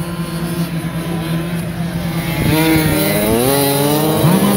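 Several racing Honda Dio two-stroke scooters coming through a turn. At first their engines run as a steady drone; about two and a half seconds in, several engine notes climb in pitch together and get louder as the scooters accelerate toward the camera.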